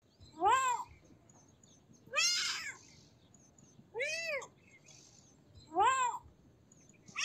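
A kitten meowing: four short high-pitched meows about two seconds apart, each rising and then falling in pitch, with the next one starting at the very end.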